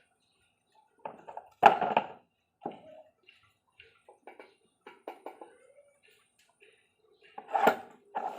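Metal engine parts being handled on an engine block during assembly: a sharp knock about two seconds in, scattered light clicks, and another pair of knocks near the end.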